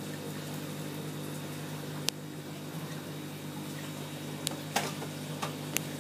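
Steady low hum of aquarium pump and filter equipment, with a handful of sharp clicks, one about two seconds in and four more in the last two seconds.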